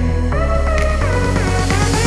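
Electronic background music: synth lines that slide between notes over a steady bass.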